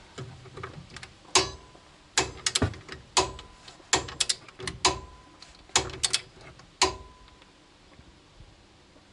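Sharp metallic clicks and clinks of a hand wrench on the front strut-to-steering-knuckle bolt as it is turned the last 90 degrees past its 70 Nm torque. The clicks come singly and in short groups, a few with a brief metallic ring, and stop about seven seconds in.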